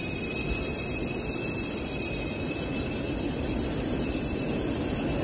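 Large spinning reel's drag whirring steadily as the line is pulled off the spinning spool, with a thin steady whine over a hiss. The drag is running hot enough that it needs water poured on it.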